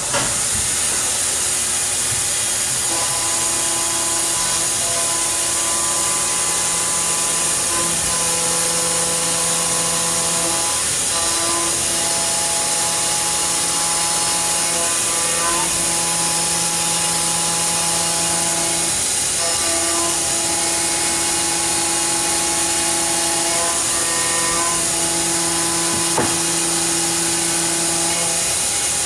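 Fadal VMC 4020 vertical machining center running under power: a steady loud whir and hiss that comes on at once, with whining tones that switch on and off every few seconds.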